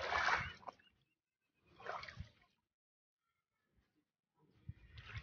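Shallow water sloshing and splashing in three short bursts: one at the start, one about two seconds in, and one near the end.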